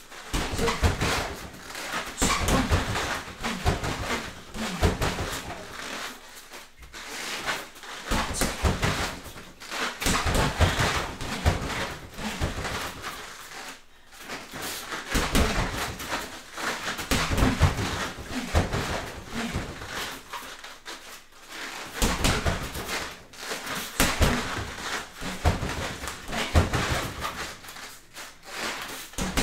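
A person shadowboxing: sharp, noisy breaths and bare feet shuffling on foam floor mats, coming in irregular bursts with short pauses between combinations.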